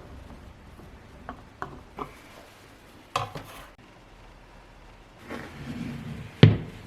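Small hard objects being handled during assembly: a few light clicks, a short rattle about three seconds in, some rubbing, then one sharp knock near the end.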